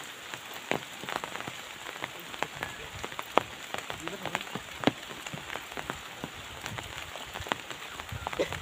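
Rain: scattered drops tapping sharply and irregularly close by, over a steady hiss.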